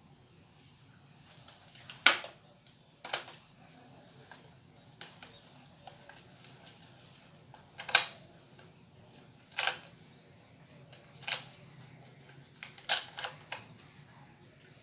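Sharp mechanical clicks and snaps from the WELL MB4410 spring airsoft sniper rifle, about eight at irregular gaps, with a quick run of three near the end.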